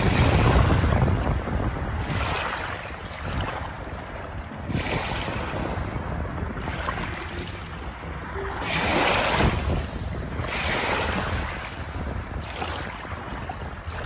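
Small waves washing in and out over a shallow pebble shore, the wash swelling and ebbing every second or two. Wind buffets the microphone with a low rumble, heaviest near the start.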